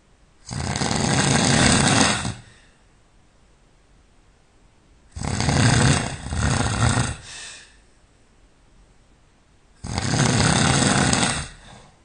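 A person snoring loudly in sleep: three long snores about five seconds apart, the middle one broken in two, with quiet gaps between.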